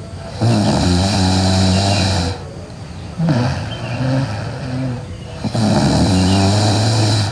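A woman snoring loudly in her sleep: two long snores of about two seconds each, with a shorter, softer one between them.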